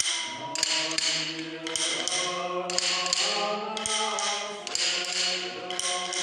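Slow church music with held notes that change slowly. Short bursts of rattling noise break in roughly once a second.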